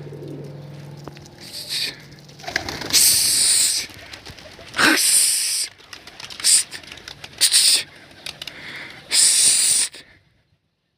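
Domestic flying pigeons' wings flapping in several loud bursts as the birds are sent up to fly.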